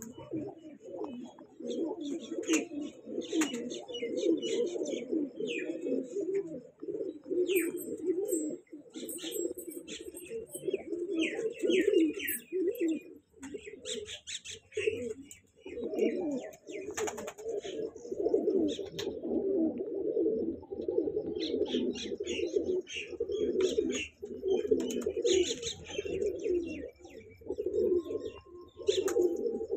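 Kanta kash pigeons cooing, several voices overlapping almost without a break, with short high chirps scattered over the coos.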